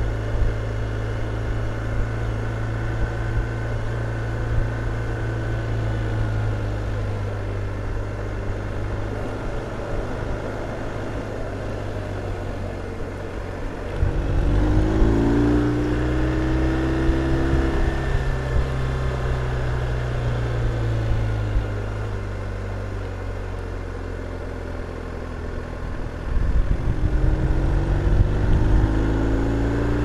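BMW R1250 RT's boxer-twin engine running at an easy cruise. The throttle is opened twice, about halfway through and again near the end, and each time the engine gets louder and its note climbs.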